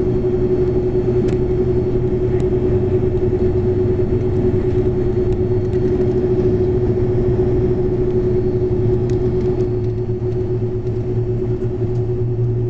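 Cabin noise inside an Airbus A330-200 taxiing, its jet engines running at idle: a steady low rumble under a constant mid-pitched hum, with a few faint ticks.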